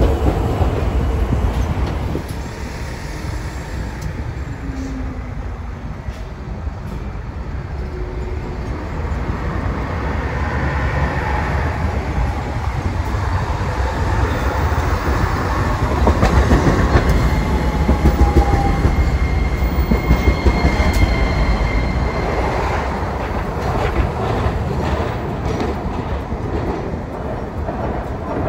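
Hiroshima street trams running on their rails: an older tram pulling away close by, then a Hiroden Green Mover Max low-floor tram approaching and passing, with a low rumble of wheels on rail. The sound is loudest just past the middle, as a thin high whine comes and goes.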